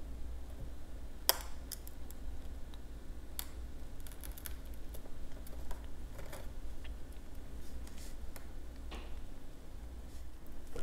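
Glass microscope slides being handled: scattered light clicks and taps as glass meets glass and the tabletop, the sharpest about a second in, over a low steady hum.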